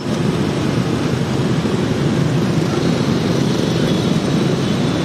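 Steady din of busy street traffic, mostly motorbike engines passing close by.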